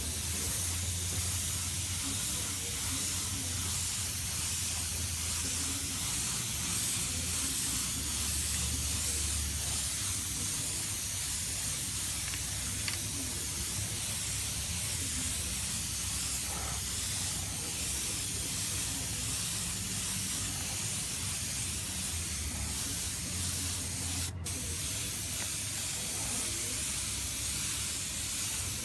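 Compressed-air paint spray gun hissing steadily as it sprays hyper chrome paint, with one momentary break late on.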